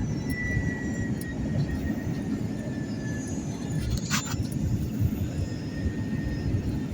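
Steady low rumble of jet airliner noise heard from the cabin, with one brief sharp sound about four seconds in.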